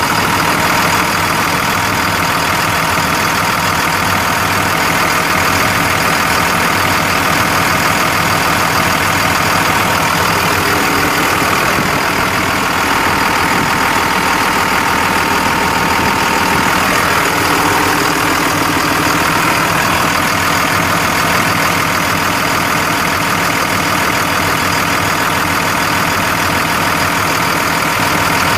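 Cummins ISB 5.9-litre straight-six turbo diesel in a Freightliner MT55 truck idling steadily, with a light diesel clatter.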